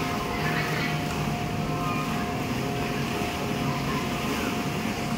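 Steady drone of an electric air blower keeping an inflatable slide inflated, with a constant pitched hum running through it.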